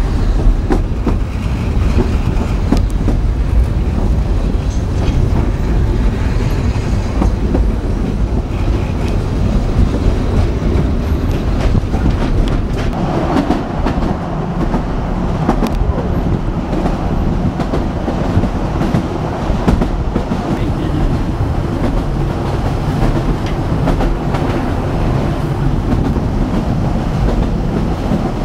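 Welsh Highland Railway narrow-gauge carriage running along the track, heard from inside an open-sided coach: a steady rumble of wheels and running gear with frequent clicks and clacks.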